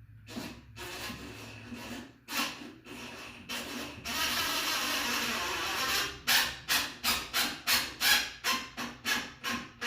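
GFCI receptacle being worked into its electrical wall box and screwed down. There is scraping and rubbing against the box, a steady rasp about four seconds in, then a quick run of short scraping strokes.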